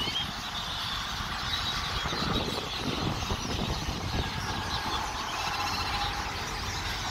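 A flock of birds in a tree calling: many short chirps and whistles, some rising in pitch and one quick run of notes a little past the middle, over a steady low rumble of road traffic.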